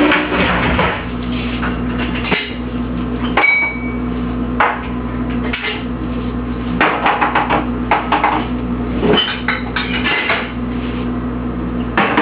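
Dishes clinking and clattering as a dishwasher is unloaded: irregular knocks and tinkling as pieces are lifted out and set down, with one short ringing note a few seconds in, over a steady low hum.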